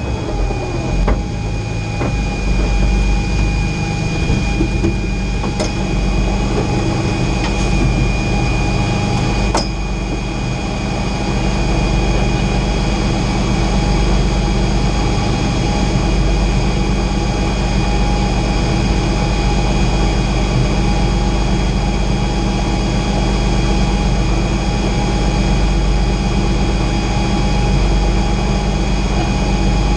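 Race-modified Nissan March's engine idling steadily, heard from inside the stripped cabin, with a steady high whine over it. A single sharp knock sounds near ten seconds in.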